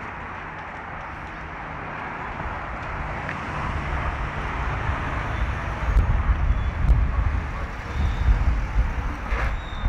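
Road vehicle driving past, its noise building over several seconds, with heavy, uneven low rumbling, likely wind or handling on the microphone, through the second half.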